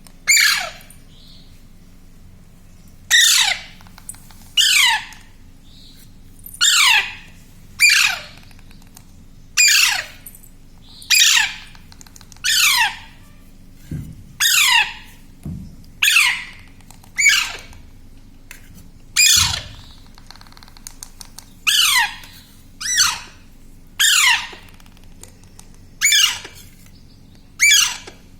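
Baby parrot giving harsh, repeated begging squawks while being hand-fed, about one call a second, each sliding down in pitch.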